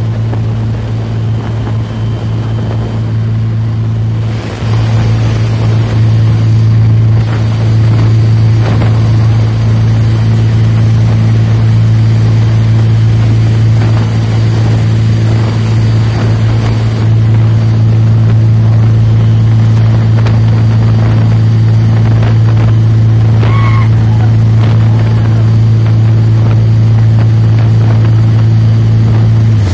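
Steady low drone of a riverboat's diesel engines running at cruising speed, over a broad rushing of wind and water spray.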